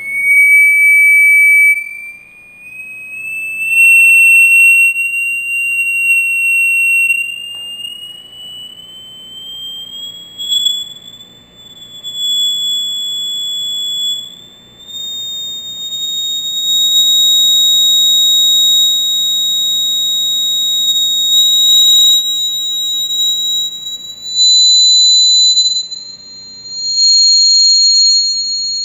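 Square Chladni plate driven by a vibration generator, sounding a high-pitched steady tone that rises slowly in pitch throughout. The tone swells loud and dies back several times as the driving frequency passes through the plate's resonances.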